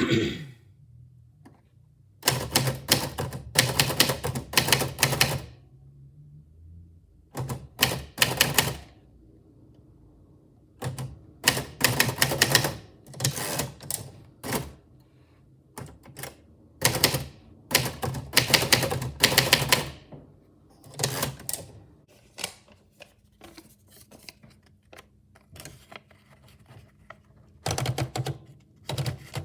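Typewriter keys striking in quick runs of clicks, a few seconds of typing at a time broken by pauses.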